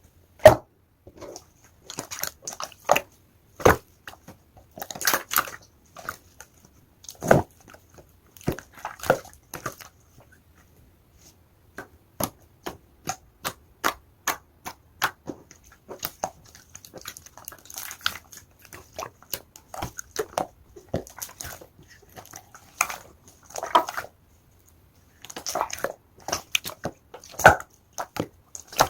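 Clear slime being pressed, folded and stretched by hand, giving irregular sharp sticky clicks and small popping squelches, some in quick clusters.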